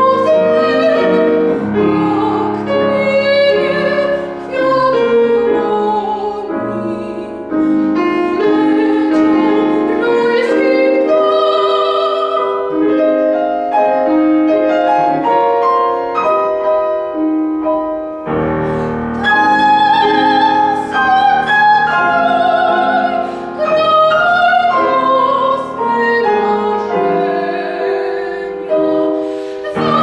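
Classical soprano singing an art song with vibrato, accompanied on a Petrof grand piano; about eighteen seconds in, the piano comes in with a deep bass chord.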